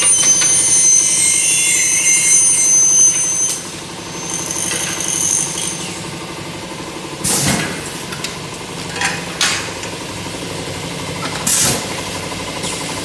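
A machine running steadily in a metal workshop, with a high shrill metallic screech for the first three and a half seconds, then a few sharp knocks.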